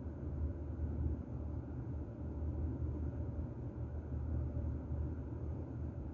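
Steady low rumble and hum of room noise, with no distinct events.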